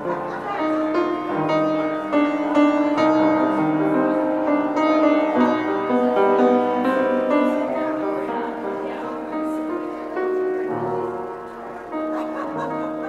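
An upright piano playing a slow piece, a melody over held chords.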